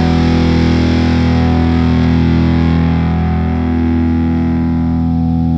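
Heavily distorted electric guitar chord held and ringing steadily.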